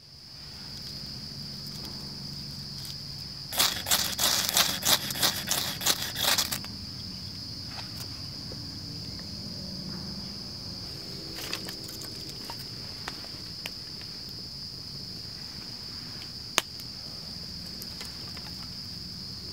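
Insects, crickets, trill steadily and high-pitched throughout. About three and a half seconds in comes a quick run of harsh scrapes lasting about three seconds: a ferro rod struck to shower sparks onto feather-stick shavings to light a campfire. Later, a few single snaps and crackles come as the flame takes and small kindling is added.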